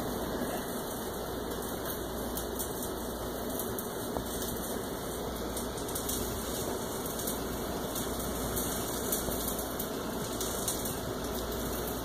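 Heavy rain falling steadily: an even rushing hiss with scattered light ticks of drops.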